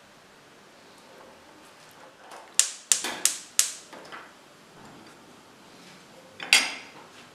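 Kitchen utensils clattering at the stove as they are set down and picked up: four quick knocks close together a little before halfway, then one louder knock with a short ring near the end.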